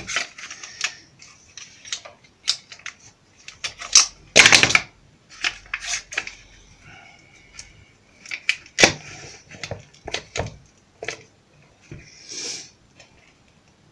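Irregular clicks and knocks of steel bar clamps and a wooden log box being handled on a workbench, loudest about four to five seconds in and again near nine seconds.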